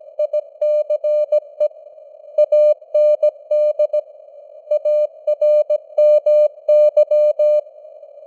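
Morse code sent as an on-off keyed tone at 17 words per minute: short and long beeps in groups, with word gaps about 2 and 4 seconds in, over a steady hiss of simulated radio band noise. The keying stops near the end, leaving only the hiss.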